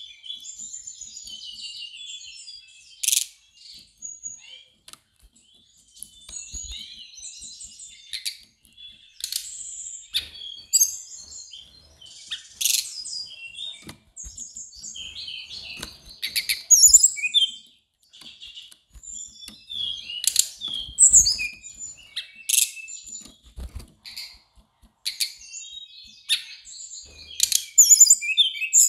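Brown-chested jungle flycatcher singing a fast, varied run of high chirps and twitters in phrases with short pauses, broken every few seconds by sharp, loud notes.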